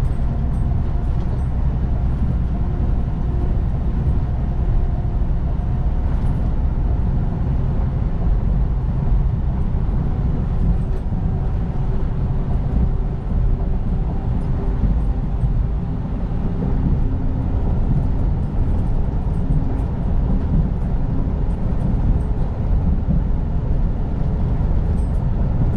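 Heavy-haul semi truck running steadily down the road: a constant low engine drone with road noise.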